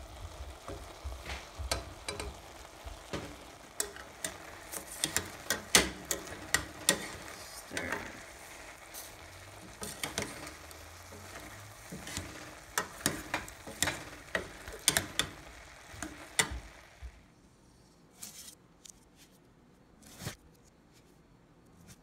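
Sautéing beans, corn, onions and peppers sizzling in a stainless steel pot while tongs stir them, clicking and scraping against the pot many times. About seventeen seconds in the sizzle stops, leaving only a few scattered clicks.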